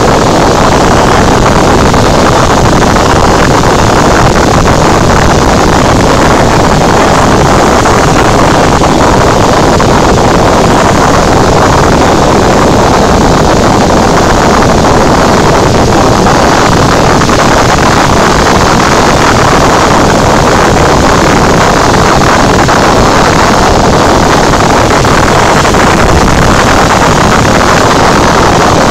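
Cessna 172 cabin noise in level flight: the piston engine and propeller droning steadily together with the rush of air past the cabin. Loud and unchanging, with no shift in power.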